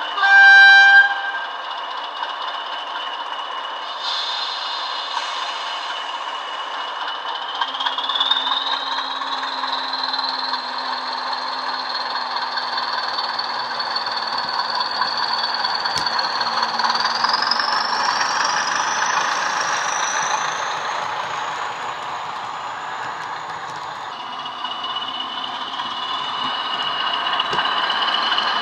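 Digital sound of a British Rail Class 20 diesel played from a DCC sound decoder through the models' small speakers: a short loud horn blast about a second in, then the engine running with its high turbocharger whistle, which rises in pitch twice as the locomotives power up and drops back lower near the end.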